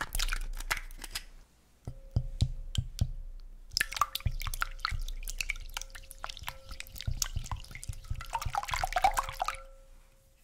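An egg drops into a glass bowl of raw eggs with a wet splash, then the eggs are beaten with a silicone whisk: quick irregular taps of the whisk against the glass with the slosh of the liquid egg, getting denser from about four seconds in and stopping shortly before the end.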